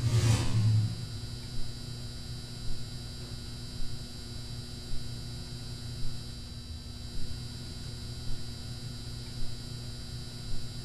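Steady low electrical hum that swells briefly about once a second. A loud whoosh at the very start falls quickly in pitch.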